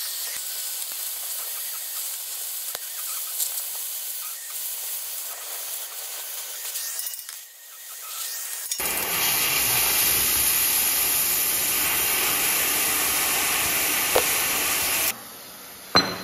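Oxy-fuel gas cutting torch hissing as it cuts through steel plate, growing louder and fuller from about nine seconds in and dropping off sharply near the end. A single sharp knock right at the end.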